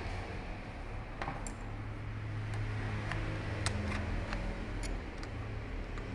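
Small metal parts of a Bosch diesel injection pump clicking against each other and the tools as it is taken apart: about eight short, light clicks at uneven intervals over a steady low hum.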